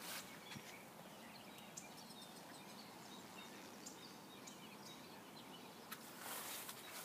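Faint outdoor hiss with a few scattered faint bird chirps; about six seconds in, a rustling of footsteps through grass begins.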